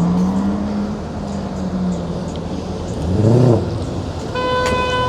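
Street traffic with car engines running, then a car horn sounding one steady held note for about a second and a half near the end.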